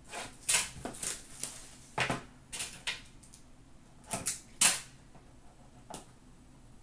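Hands opening a sealed hockey card box: a run of sharp crackles and snaps from the packaging, loudest about half a second, two seconds and four and a half seconds in, dying away by about six seconds.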